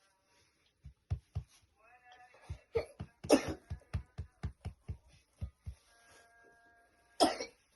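A young girl's coughing fit: a rapid run of short, hard coughs one after another, loudest a few seconds in, with one more hard cough near the end.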